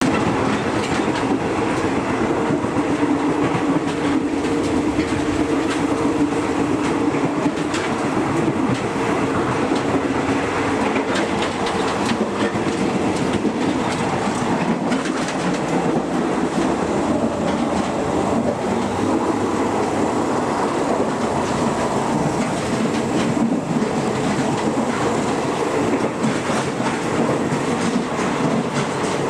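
State Railway of Thailand non-air-conditioned passenger car running: steady wheel-on-rail rumble with a droning hum and frequent clicks of the wheels over the track.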